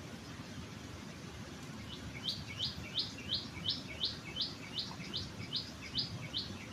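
A small bird calling a fast series of short, rising chirps, about three a second, starting about two seconds in, over a steady low background rush.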